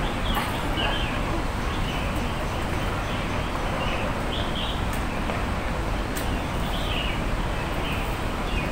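Captive aviary birds chirping in short calls every second or two, over a steady low background rumble.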